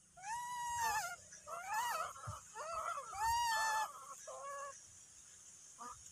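A young macaque calling: a run of four or five high, arching cries in the first five seconds.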